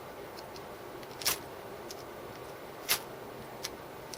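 Metal buckle of a paracord bracelet scraped along a ferrocerium rod to throw sparks, a few short, sharp strokes about a second and a half apart, with fainter ticks between.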